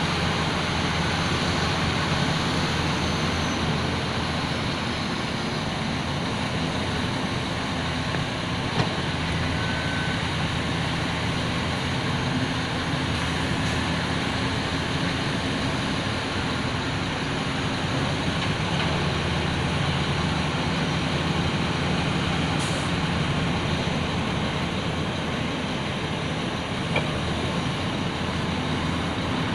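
Heavy diesel earthmoving machinery, an off-road dump truck and a large excavator, running in a steady drone. There are two faint brief knocks, one about nine seconds in and one near the end.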